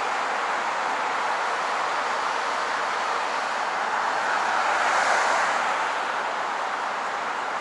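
Street traffic noise, a steady hiss of passing vehicles that swells as one vehicle goes by about two-thirds of the way through.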